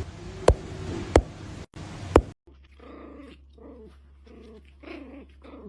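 Guitar music with strummed chords that cuts off about two seconds in, followed by a dog grumbling and growling in short, repeated bouts over a steady low hum.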